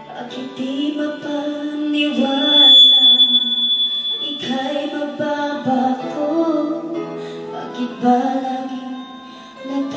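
A woman singing into a handheld microphone over a karaoke backing track.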